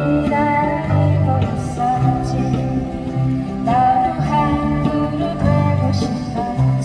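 Live acoustic band playing a song: a voice singing over acoustic guitar, with low notes changing about every half second underneath.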